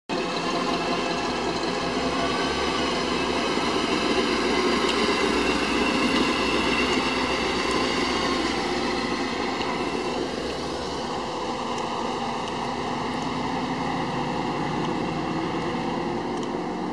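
Classic 1955 Chevrolet cars' engines and exhausts running as the cars drive slowly past one after another. The sound is loudest a few seconds in and eases off after about ten seconds.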